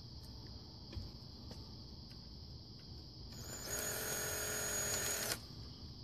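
Power drill running for about two seconds at a steady pitch, driving a terminal screw on a 30-amp twist-lock plug so its clamp grabs the ground wire, then stopping suddenly. Faint clicks of the plug being handled come before it.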